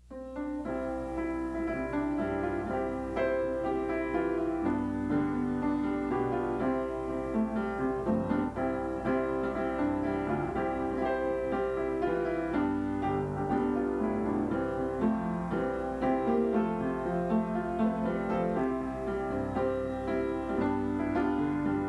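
Instrumental piano music: chords and a melody in sustained notes, starting right after a moment of silence.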